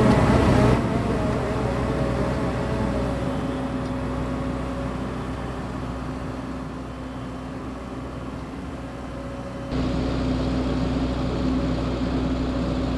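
JCB JS220 excavator's diesel engine running steadily with a low hum. It is louder for the first second, drops away and fades through the middle, then comes back suddenly louder and closer about ten seconds in.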